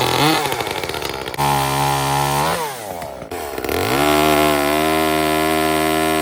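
Chainsaw engine revving: throttled up to a steady high pitch, let back down about two and a half seconds in, then throttled up again and held.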